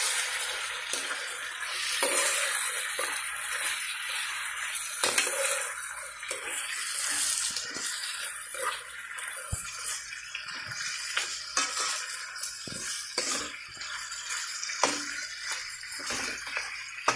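Mutton pieces frying in hot oil in a non-stick wok, a steady sizzle, with a metal spoon stirring and scraping the meat around the pan in irregular knocks.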